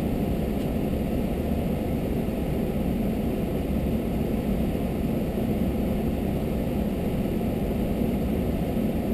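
Engine of a stopped vehicle idling: a steady low drone with no change in level.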